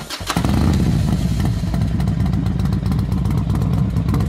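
Loud motorcycle engine running with rapid, even firing pulses, starting about a quarter second in.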